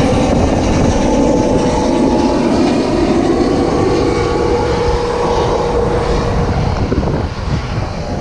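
A boat's outboard motor running steadily while under way, its hum riding over a loud rushing of wind.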